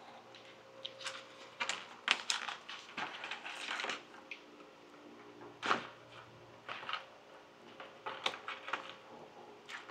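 Irregular clicks, cracks and scraping of hands pulling wiring and hot-glued parts out of a foam RC model plane's airframe, the loudest snaps about two seconds in and again near six seconds.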